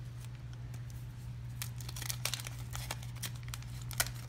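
Crinkling and crackling from baseball cards and their paper being handled, with a run of sharp snaps starting about a second and a half in. A steady low hum runs underneath.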